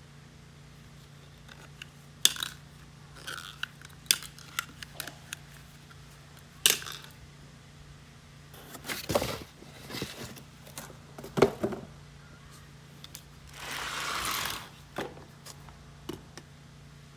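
Scattered metallic clinks and clunks of hand tools and parts being handled, with a longer rustling scrape about 14 s in, over a faint steady hum.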